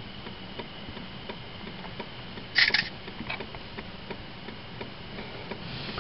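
Steady, even ticking of a car's hazard-light flasher relay, about one tick every 0.7 s with softer ticks between. A short, sharp rustle cuts in about two and a half seconds in.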